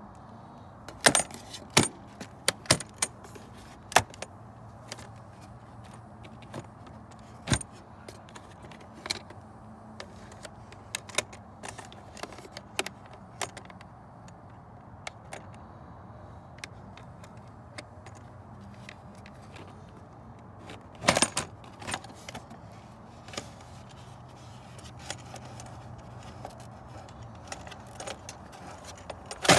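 Scattered sharp clicks, knocks and rattles of a plastic air-filter housing and its filter element being handled and worked loose. A louder cluster of knocks comes about two-thirds of the way through, over a low steady hum.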